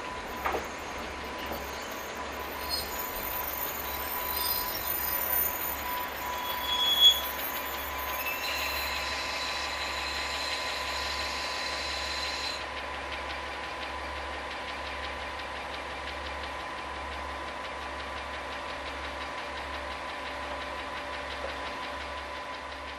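KiHa 40-series diesel railcar drawing to a stop: high brake squeal and hiss that cut off suddenly about halfway through. Its diesel engine then idles steadily.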